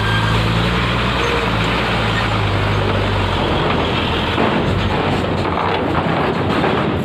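Diesel engine of a tanker truck moving slowly past close by, a steady low drone that fades after about three and a half seconds as it pulls away, leaving a wash of vehicle noise.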